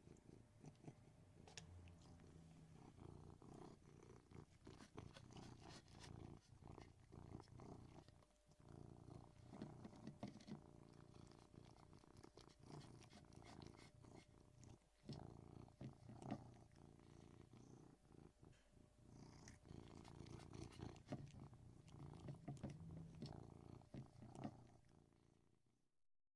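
Persian cat purring steadily and faintly while eating, with many small clicks from its chewing over the low purr. It fades out near the end.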